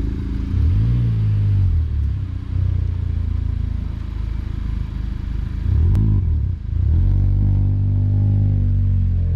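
Honda Civic Type R's turbocharged 2.0-litre four-cylinder engine and exhaust as the car is driven slowly. The engine note swells up and falls back twice, then settles into a steady drone that climbs a little toward the end.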